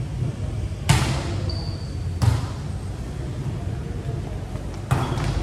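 A volleyball being struck during a rally: three sharp slaps, about a second in, just past two seconds and near the end, each echoing through the large gym hall. A brief high squeak comes between the first two.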